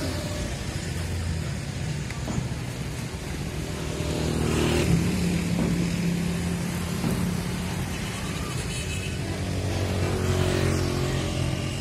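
Road traffic: motor vehicle engines running and passing close by, with a low steady hum that swells about four to six seconds in and again near the end.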